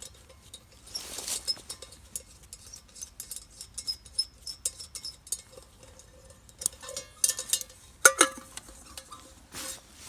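Metal camp cookware and utensils being handled: a string of light clinks and taps, some leaving a brief metallic ring, with a louder clatter about eight seconds in.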